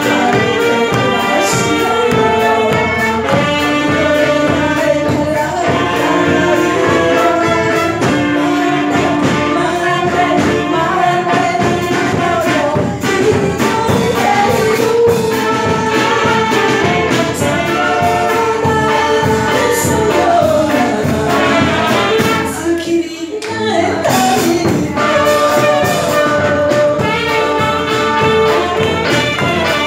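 Live band music: saxophone and other brass over a drum kit, with a voice singing the melody. The music breaks off briefly about three-quarters of the way through, then carries on.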